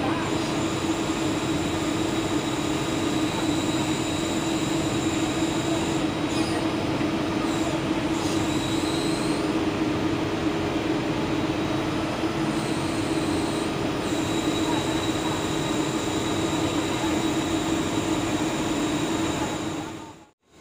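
Komatsu hydraulic excavator's diesel engine running steadily at close range, with a thin steady high whine over it. The sound cuts off suddenly near the end.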